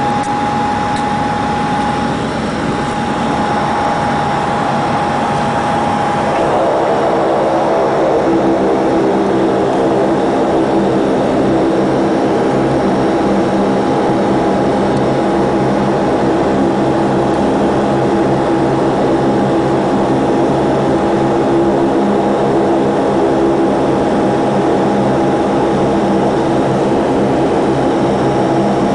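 Saab 340B's General Electric CT7 turboprop engine and propeller running at taxi power, heard from inside the cabin: a steady drone with a high whine, a little louder from about six seconds in.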